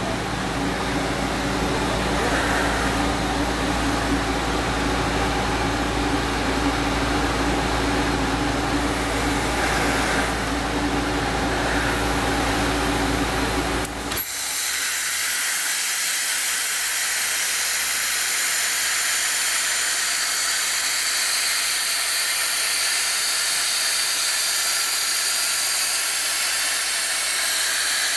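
AB 1070 vacuum blast machine running with a steady hum and whine. About halfway through it gives way abruptly to a loud, steady hiss of abrasive blasting as the blasthead works on rusty steel plate.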